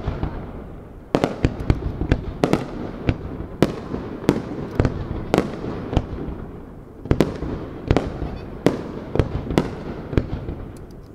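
Fireworks display: aerial shells launching and bursting in quick succession, sharp bangs roughly every half second, with brief lulls about a second in and again around six seconds.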